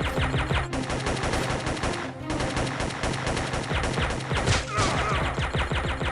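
Rapid automatic gunfire, about ten shots a second, in bursts with brief breaks, over background music holding a steady low note.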